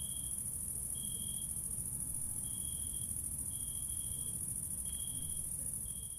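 Crickets trilling steadily in a high continuous band, with a lower chirp that comes and goes about once a second, over a faint low rumble.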